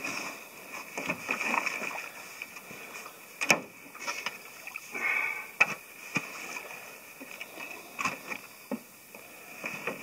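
Water splashing and sloshing around wading legs and a 13-foot ultralight pack canoe as a man clambers into it from shallow water, with scattered sharp knocks against the hull; the loudest knock comes about three and a half seconds in.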